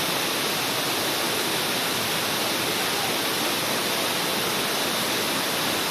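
Waterfall with the steady, unbroken rush of falling water.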